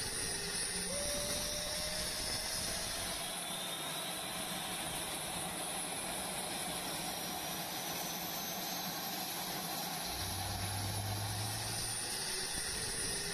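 Dassault Rafale's twin Snecma M88 turbofans running at taxi power: a steady jet hiss with thin whining tones that climb slowly in pitch. A low drone joins for a couple of seconds near the end.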